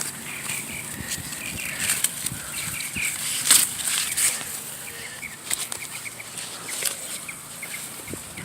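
Corn stalks, leaves and husks rustling as ears are picked from the plants, with a few sharp snaps; the loudest snap comes a little past the middle.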